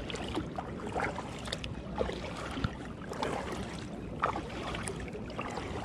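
Kayak paddle blades dipping into calm water with light splashes and drips, about one stroke a second.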